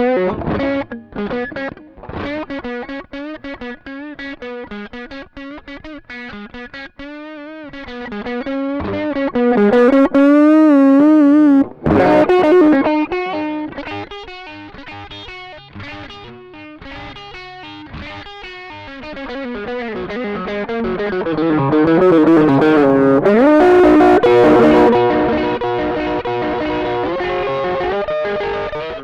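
Electric guitar played back from a looper through a Caline 'British Sound' overdrive pedal, giving a distorted tone. The line has bent, wavering notes, and the loudness jumps up about ten seconds in and swells again after about twenty seconds.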